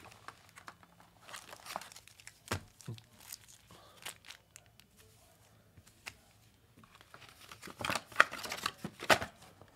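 Rustling and crinkling of plastic-wrapped cardboard trading-card boxes being handled, with scattered clicks and light knocks, busier and louder near the end.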